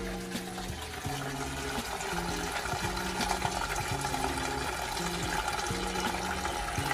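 Pumped water pouring steadily from a PVC pipe into a plastic filter box as it fills. Soft background music plays underneath.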